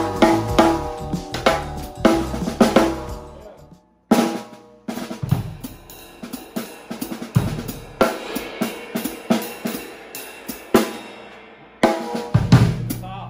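Drum kit played in a groove, with a wood-shell snare drum, bass drum, hi-hat and cymbals; the snare is being tried out for its sound. The playing stops briefly about four seconds in, then starts again.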